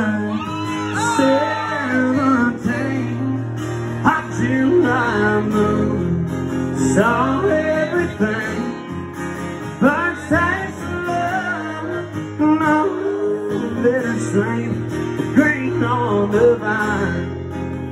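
Live country music: a steel-string acoustic guitar strummed in sustained chords, with a man's voice singing over it into a microphone.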